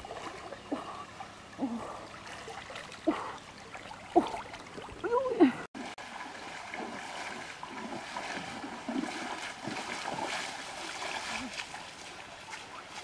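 River water splashing and running as a person swims through it, then wades through the shallows. A few short calls that rise and fall come through in the first half, and the sound changes abruptly about halfway through.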